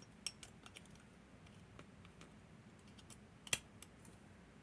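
Light clicks and taps of small metal lock parts being handled and set down on a surface: the levers of a disassembled lever padlock being laid out one by one, with one sharper click about three and a half seconds in.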